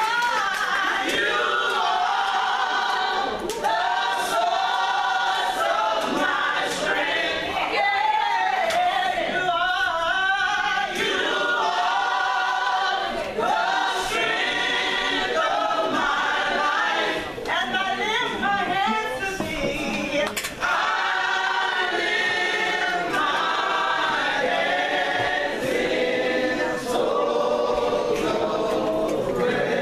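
Gospel vocal group singing in harmony, with a woman's lead voice on a microphone over the group's voices.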